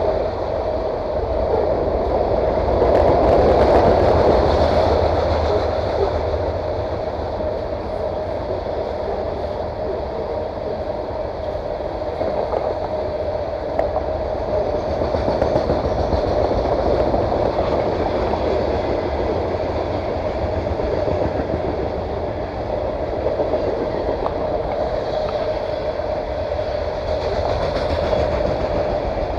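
A train passing, with a steady rumble of wheels on the rails and a sustained noise that swells slightly a few seconds in. It is really loud.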